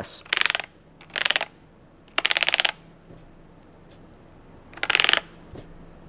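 Fast typing on a KZZI K75 Pro mechanical keyboard with Moment linear switches. The keys clatter in four short bursts of rapid clicks, each about half a second long.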